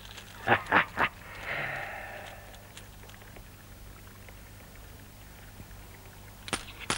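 Gold coins clinking: three quick metallic chinks about half a second in, followed by a soft breathy sound, with a couple of small clicks near the end.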